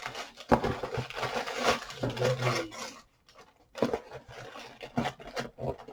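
Packaging being handled and opened by hand: irregular rustles and clicks, stopping briefly about three seconds in, then resuming.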